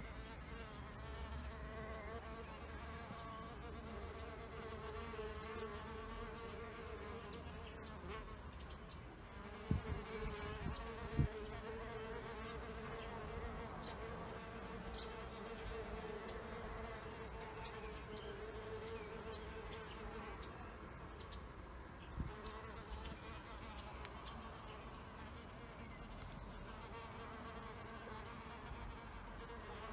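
Bees buzzing in flight: a steady, slightly wavering wing hum. A few brief low thumps come about ten, eleven and twenty-two seconds in.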